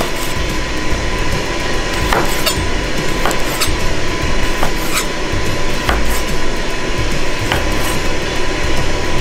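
Knife chopping on a cutting board: about eight irregularly spaced knocks over a steady hiss.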